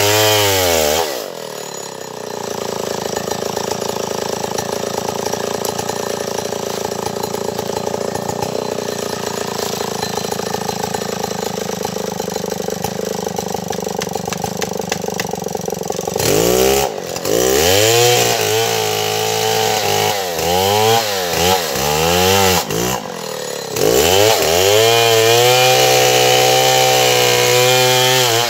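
Stihl 070 two-stroke chainsaw running loud: it drops from high revs into a long steady, lower-pitched run of about fifteen seconds, then is revved up and down several times, dips briefly, and holds high revs again near the end.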